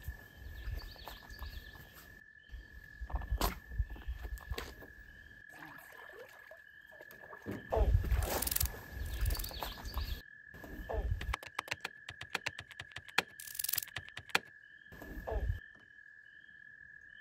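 Pondside outdoor sounds over several quick cuts: low wind rumble on the microphone in bursts, a faint steady high tone, and short scattered noises, including a quick run of clicks near the middle.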